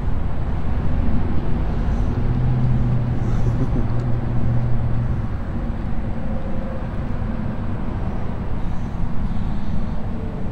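Steady low rumble of motor-vehicle noise, with an engine hum that strengthens about two seconds in and drops away a little after five seconds.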